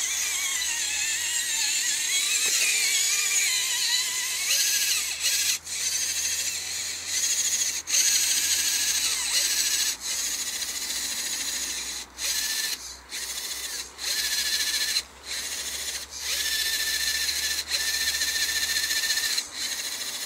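Radio-controlled crawler truck's electric motor and gearbox whining as it drives through shallow muddy water, the pitch wavering in the first few seconds, then cutting out briefly a handful of times as the throttle is let off and on.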